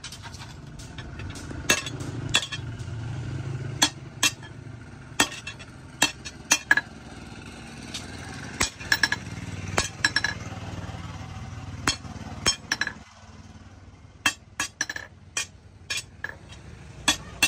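Small sledgehammer striking a steel bar, salvaged from a car steering wheel, on a post anvil: sharp metallic clanks at irregular intervals, about one or two a second, coming quicker toward the end, over a low steady hum.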